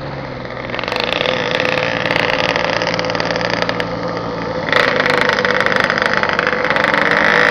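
Motorcycle engine running while riding, mixed with wind noise on the microphone. It gets louder about a second in and again near five seconds as the bike speeds up.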